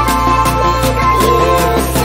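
Background music with a steady beat and a melody line over held tones.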